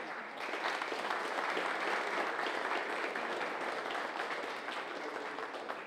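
An audience applauding: many people clapping together in a steady, dense applause.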